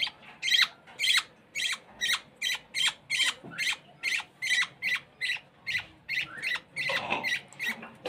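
Budgerigar chick making rapid, repeated short high begging chirps, about two to three a second, while being hand-fed formula through a syringe and tube.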